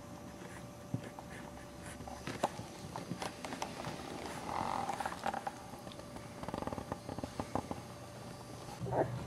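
Boxer puppy snuffling as it sniffs along the ground close up, with scattered light clicks and a few short grunting sounds.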